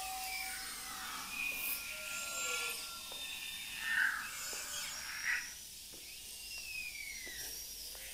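Sparse experimental music of high, whistle-like tones sliding up and down, with scattered faint clicks. Brief swells come about four and five seconds in, and a long falling glide comes near the end.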